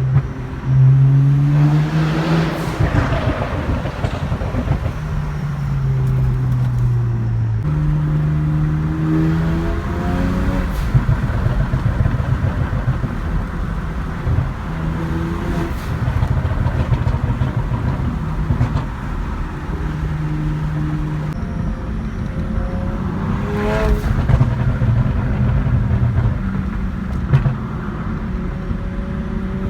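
BMW 335's turbocharged straight-six through a loud exhaust, pulling through several hard accelerations with the pitch climbing and then dropping on each lift. A few sharp pops and crackles come from the exhaust as the throttle comes off.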